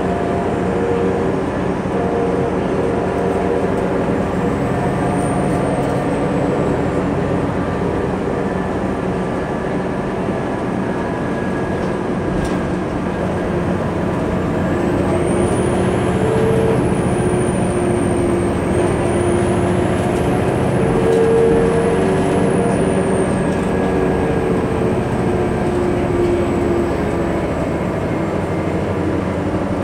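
Interior of a 2003 New Flyer D60LF articulated bus under way: its Detroit Diesel Series 50 diesel engine and Allison transmission run steadily under road noise, with engine tones drifting in pitch as the speed changes. A faint high whine rises and falls around the middle.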